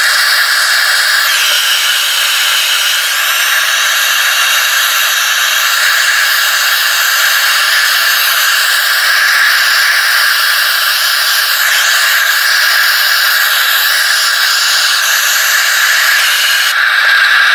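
Gas torch flame hissing steadily as it heats a crucible to fire its glaze.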